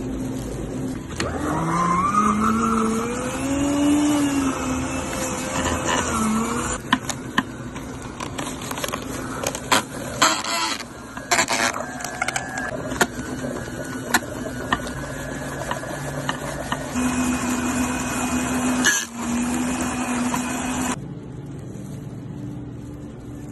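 Spindle milkshake mixer running, its spindle churning ice cream in a steel cup, with scattered sharp knocks.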